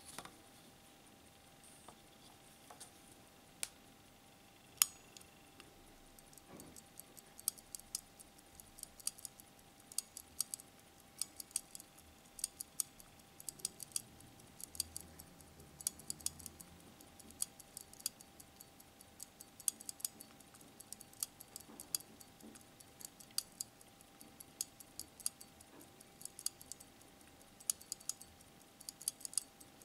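Small sharp metallic clicks, several a second and uneven, from the crown and hand-setting works of a Volta minute-repeater wristwatch as its hands are turned. There are two louder single clicks a few seconds before the run of clicks starts, and a faint steady hum underneath.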